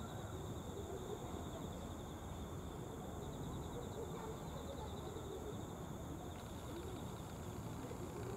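Insects trilling steadily at a high pitch, a fast even pulsing, over a low outdoor rumble.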